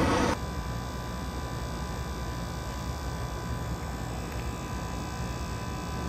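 A loud rush cuts off abruptly just after the start, leaving the steady low hum of a running three-phase rooftop condensing unit with faint steady whining tones.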